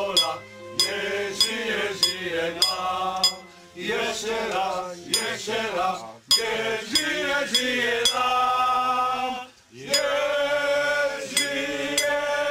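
Male voices singing a slow, chant-like song in phrases, with a light regular tick about every 0.6 s for the first half or so.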